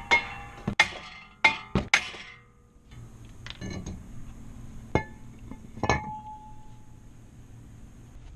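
Metal tools and brake parts clinking as they are handled: a quick run of sharp clinks in the first two seconds, a light rattle, then two single clinks near the end, the last one ringing briefly.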